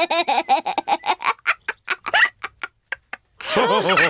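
Cartoon pig characters laughing: a fast run of short 'ha-ha' pulses that slows and trails off, then a new burst of laughter about three and a half seconds in.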